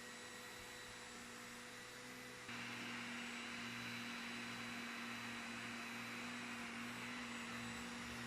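Vacuum cleaner motor running with a steady whir and hiss. The hiss gets louder about two and a half seconds in.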